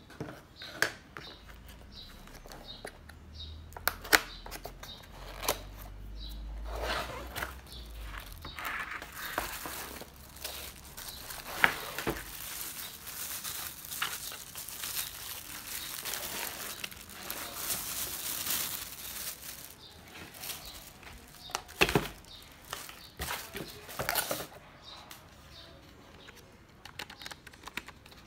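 A keyboard's cardboard box being opened and the keyboard unwrapped from its plastic bag: crinkling, rustling plastic, with scattered sharp knocks and taps from the handling.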